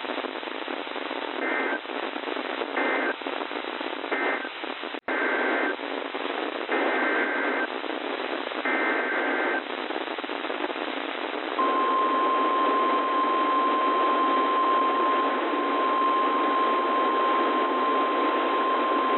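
NOAA Weather Radio broadcast with static hiss carrying EAS SAME data: three short two-tone digital chirps (the end-of-message code closing one warning), a brief dropout, then two longer data bursts (the header of the next alert). About halfway through, the steady 1050 Hz weather radio alert tone starts and holds, announcing the next warning.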